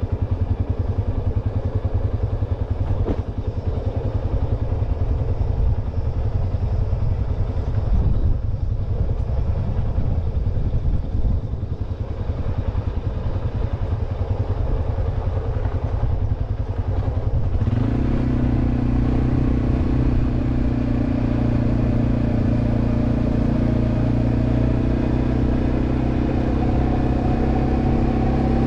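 Quad bike engine running while riding, a rough low rumble. About eighteen seconds in the engine note turns steadier and stronger, and a faint whine rises slowly near the end.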